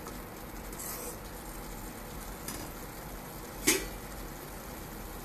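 Vermicelli cooking in boiling water in a nonstick kadai, a steady hiss, with a spatula knocking against the pan. One sharp clack about three and a half seconds in is the loudest sound.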